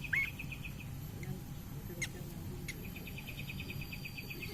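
A kapas tembak songbird gives a short upward-hooked whistle, then a fast, even rattle of high ticks. The rattle breaks off about a second in and starts again past the middle, with two sharp clicks between.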